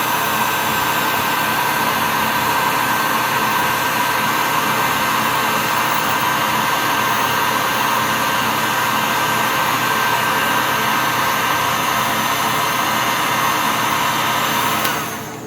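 Electric hot-air blower running steadily, shrinking heat-shrink tubing over a crimped PL-259 coax connector, and switching off near the end.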